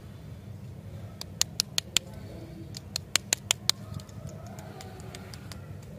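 Crinkling plastic wrapper of a stick lollipop being handled: two quick runs of sharp crackles, about five in under a second, then about six more a second later, with a few fainter ones after.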